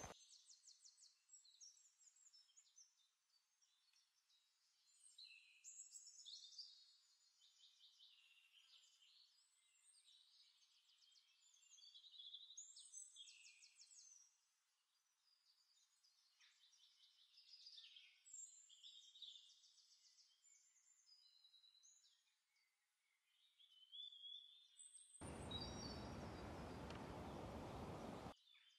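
Faint woodland birdsong: several small birds chirping and singing quick trills. Near the end, a loud steady rushing hiss cuts in for about three seconds and stops abruptly.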